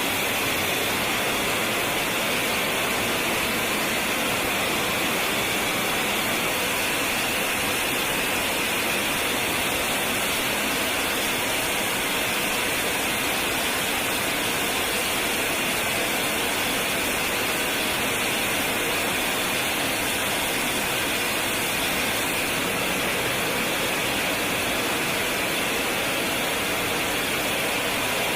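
Steady jet engine noise: an even rushing hiss with a band of higher whine, holding at one level.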